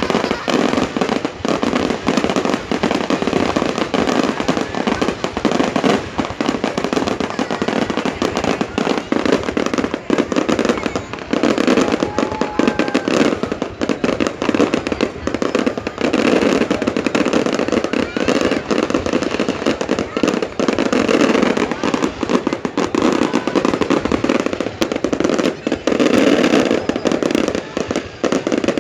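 A fireworks display going off continuously, a dense run of bangs and crackles, with a crowd's voices underneath.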